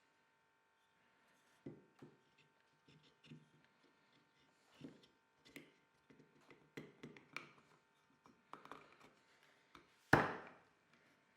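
Scattered light knocks and handling noises, with one louder knock about ten seconds in, over a faint steady hum.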